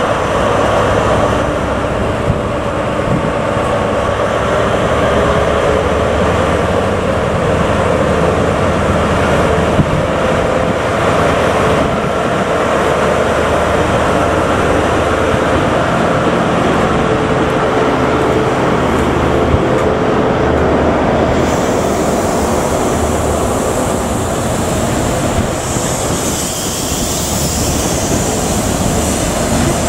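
Class 43 HST diesel power car moving slowly past with its engine running steadily, then its train of coaches rolling by, with a hiss of wheels on wet rail growing over the last several seconds.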